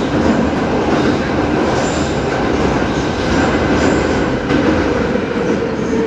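Saint Petersburg Metro train running at speed through a tunnel, heard from inside the carriage: a loud, steady rumble of wheels on rails, with a steady whine coming in near the end.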